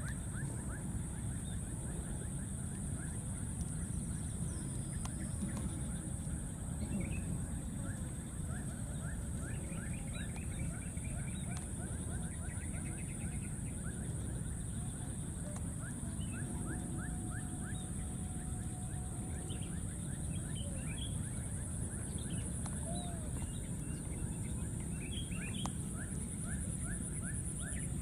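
Outdoor wildlife ambience: a steady high-pitched insect drone with many short, rapidly repeated chirping calls, over a low rumble of wind or handling noise.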